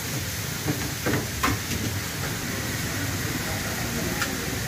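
Noodles frying in a wok over a gas burner, a steady hiss, with a few sharp metal clinks about a second in and one more near the end.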